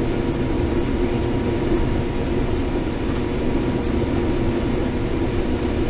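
Case IH 7130 combine running steadily while harvesting corn, heard from inside the cab: a constant machine drone with a faint steady whine over it.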